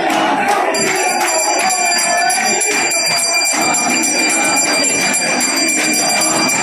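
Temple puja bell rung rapidly and continuously, starting about a second in, with its ringing tone held steady. A crowd's voices go on beneath it.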